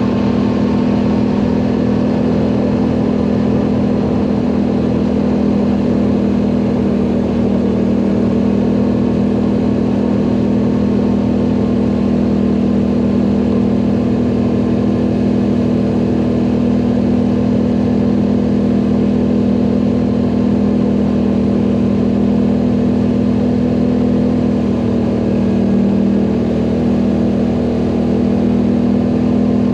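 ATV engine running steadily under load, a constant drone that holds nearly the same pitch throughout.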